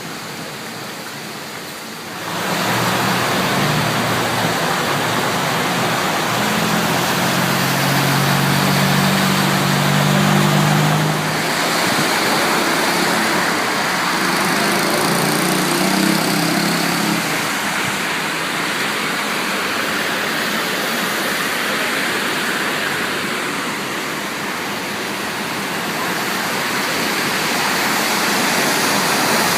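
Heavy rain pouring down in a steady hiss that jumps louder about two seconds in. A low droning hum sits underneath for several seconds in the first half.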